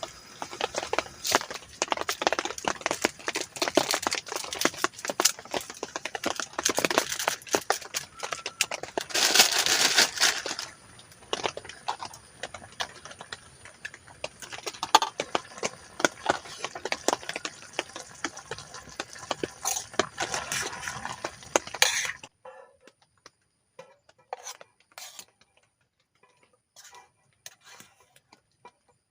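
Cooking sounds: metal utensils clinking and scraping in a pot or pan. There is a louder burst of noise lasting about a second, about nine seconds in. After about 22 seconds only scattered light clicks remain.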